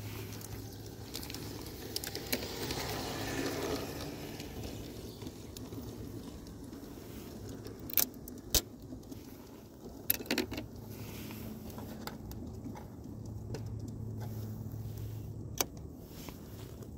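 Handling noise as small plastic model figures are picked off a garden-railway station platform: a few sharp clicks and taps, spread out over the middle and end, over a steady low outdoor background hum.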